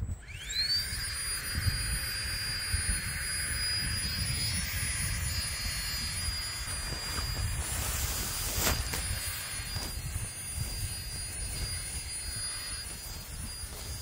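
Strong wind rumbling and buffeting on the microphone. A thin, steady high-pitched whine comes in with a quick upward sweep at the start and holds throughout.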